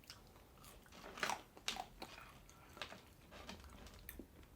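Close-miked eating: chewing and biting food, with soft crunches and wet mouth clicks coming at irregular intervals, the loudest a little over a second in.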